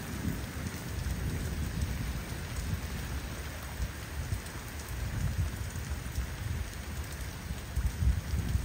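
Steady rain falling, with a low rumble of thunder underneath that swells a little near the end.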